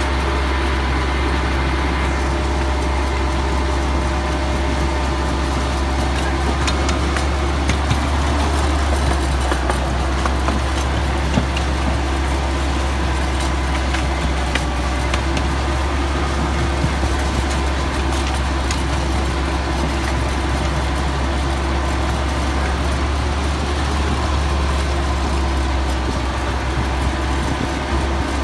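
Miniature ride-on train running steadily along its track: a constant low engine hum with scattered light clicks from the wheels on the rails.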